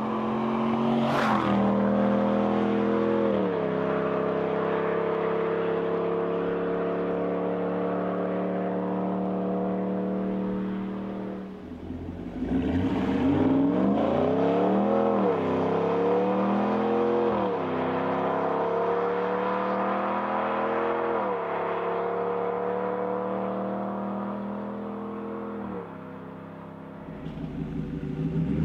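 A Ram 1500's 5.7 L Hemi V8 through an AWE OFG catback exhaust, accelerating hard. The engine note climbs and drops at each upshift, then eases off. About twelve seconds in a second run starts and goes through three quick upshifts. Near the end the note falls away and starts climbing again.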